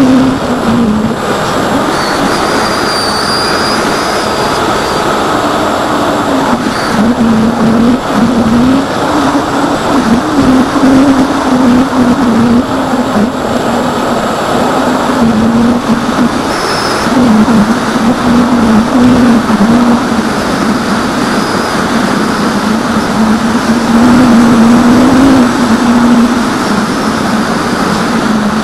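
Electric motor and propeller of an AXN foam RC plane in flight, heard from its onboard camera: a low hum that wavers up and down in pitch with the throttle, over steady wind rush.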